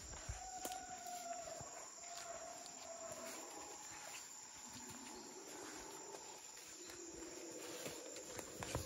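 Tropical rainforest ambience: a steady high insect buzz, with long wavering hum-like animal calls, a higher one in the first few seconds and a lower one in the second half. A few soft footsteps sound on the forest floor, most of them near the end.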